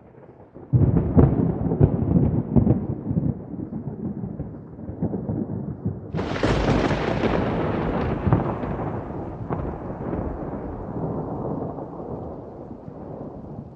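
Thunder from a lightning sound effect: a sudden crackling rumble breaks in about a second in. About six seconds in comes a sharper, brighter crack that rolls off into a long, slowly fading rumble.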